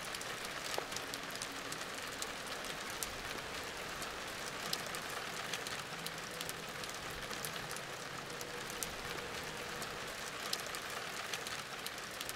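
Steady light rain falling, a soft hiss with scattered drops ticking close by.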